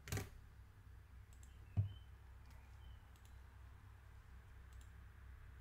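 A few faint computer-mouse clicks over a low steady hum, with a soft thump about two seconds in.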